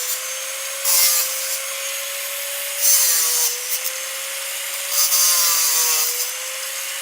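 A machine running with a steady hum, and a harsh rubbing scrape that comes back roughly every two seconds, three times: the unwanted noise coming from the machine.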